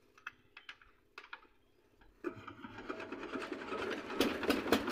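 Single-cylinder diesel engine on a three-wheeled cargo vehicle being started with a hand crank. A few clicks of the crank come first; then, about two seconds in, the engine turns over and begins firing in a rapid, knocking beat that grows louder toward the end.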